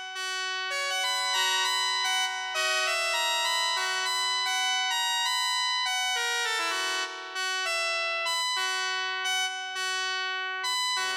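Elektronika EM-25 electronic keyboard playing a melody over held chords, with sustained, steady organ-like notes.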